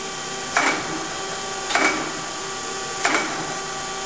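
Chevalier FSG-1224AD surface grinder running, with a steady hum and whine from the spindle and hydraulics. The reciprocating table reverses at each end of its stroke with a short clunk and hiss, three times about 1.2 seconds apart.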